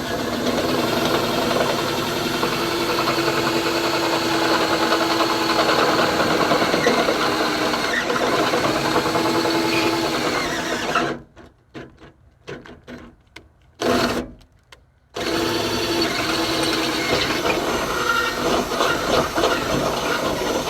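Electric drill with a 3/8 in bit running steadily under load for about eleven seconds. It stops, leaving a few small clicks and one short burst of running, then runs steadily again.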